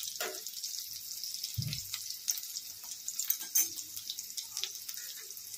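Chicken nuggets shallow-frying in hot oil in a pan: a steady sizzle with scattered crackles and pops, and a soft low bump about one and a half seconds in.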